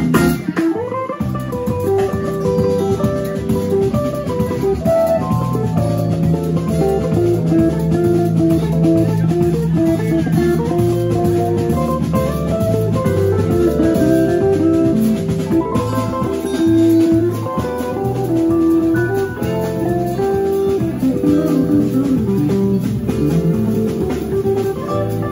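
Live jazz band playing an instrumental, with electric guitar prominent over electric bass, drum kit and a Nord Electro 4 keyboard.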